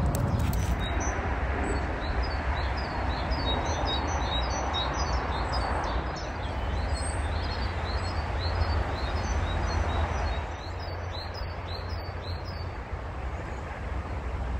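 Small songbirds chirping and singing, many quick high notes in rapid series, over a steady low rumble and hiss. The birdsong dies away near the end.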